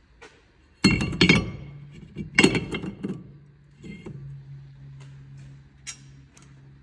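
Two bursts of metallic clinking and clanking with short ringing as a new cast-iron brake disc is handled, about one and two and a half seconds in. A steady low hum sets in about four seconds in.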